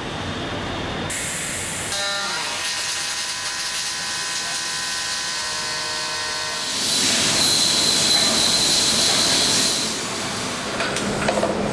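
Robotic welding cell running on a motorcycle frame line: a steady hiss with a stack of steady machine tones. About seven seconds in, a louder hiss with a high whine sets in for about three seconds.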